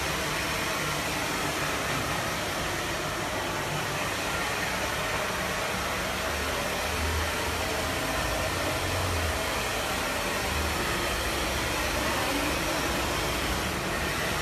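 A hair dryer running steadily, a continuous rushing noise.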